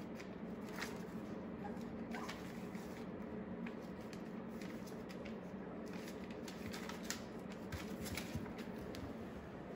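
Young puppies moving about on newspaper: soft paper rustling and crinkling with scattered light ticks, over a steady low hum.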